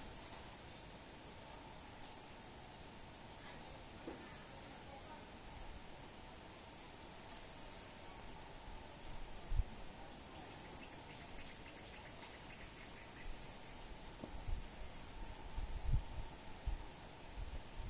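A steady, high-pitched insect chorus buzzing without a break, dipping briefly about ten seconds in and again near the end. A few short low thumps sound about halfway through and several more in the last few seconds.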